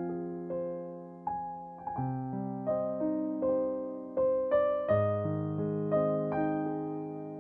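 Soft background piano music: single notes struck every half second or so over held low chords, each note fading away.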